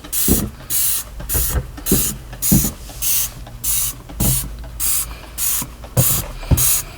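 Hand trigger spray bottle of diluted bleach squirting in quick repeated pumps, about two sprays a second. Each spray is a short hiss with a soft click of the trigger, spot-treating stains on carpet.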